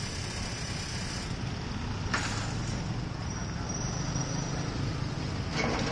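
Steady hiss of rain with a low hum of street traffic. Two short, sharp sounds break through, one about two seconds in and one near the end.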